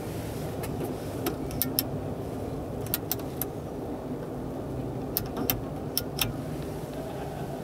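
Plastic switches on a truck cab's overhead dome light clicking as the lamps are switched on and off: about a dozen sharp clicks in small groups. Under them is the steady hum of a busy exhibition hall.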